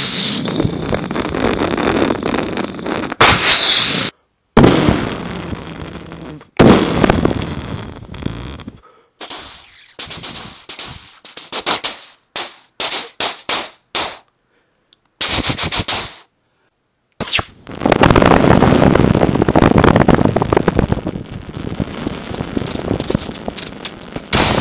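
Mouth-made imitations of battle sounds, layered over one another: blasts that start suddenly and fade out, a run of short gunfire-like bursts broken by moments of dead silence, then a long rushing stretch that slowly dies away.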